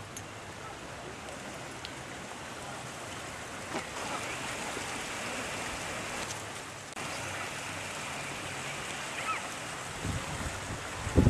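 Steady rushing of floodwater, an even noise that grows a little louder about four seconds in. Low gusts of wind buffet the microphone near the end.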